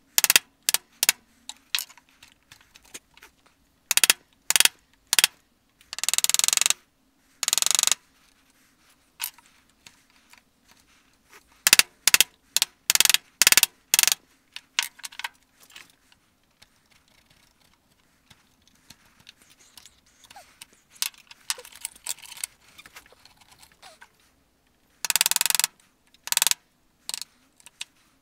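A wood chisel being struck with a mallet, chopping out dovetail waste in soft wood: runs of sharp knocks, with a few longer scraping strokes about six seconds in and again near the end.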